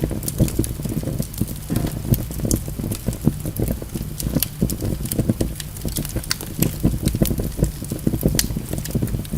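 Wood logs burning in a fireplace, crackling with frequent, irregular sharp pops and snaps over a steady low rumble of the flames.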